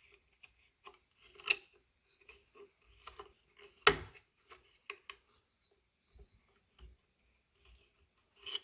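Metal parts and tools clinking and tapping as an e-bike hub motor is mounted in the frame. The clicks come irregularly, with a sharper knock about four seconds in.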